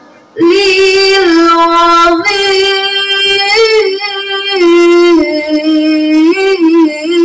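A girl reciting the Quran in the melodic tilawah style into a microphone over a PA system. She holds long notes with wavering ornaments, starting after a short breath about half a second in.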